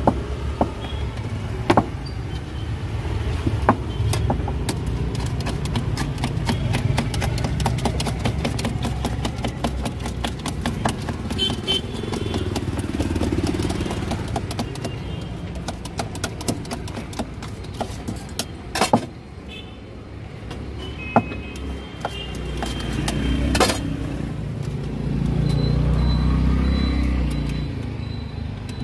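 Steady street traffic with motorcycles, over a long run of quick sharp taps from a knife chopping on a small board at a street-food stall. A motor vehicle swells louder near the end.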